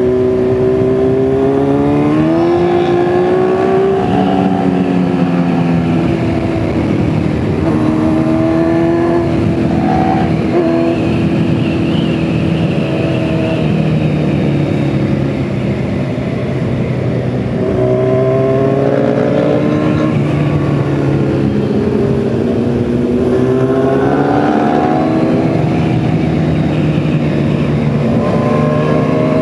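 Motorcycle engine under the rider, pulling hard and climbing in pitch, then dropping back as it shifts up, several times over, with wind rushing over the microphone.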